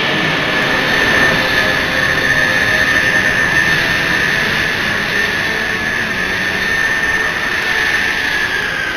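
Jet engine sound with a steady high whine over a dense rush, easing slightly in pitch and level near the end: a jet flyover effect given to a flying ferry.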